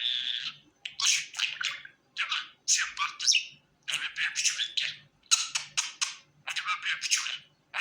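Pet budgerigar chattering in short bursts of chirps and warbles with brief pauses between them, opening with a held high whistle that ends about half a second in.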